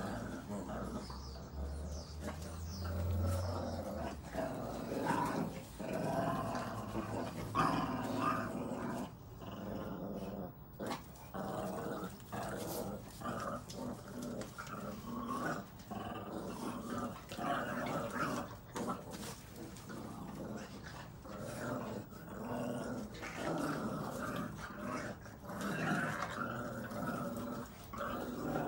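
Boston terrier puppies growling continuously while tugging at a chew ring, rising and falling in loudness. It is play growling, not aggression.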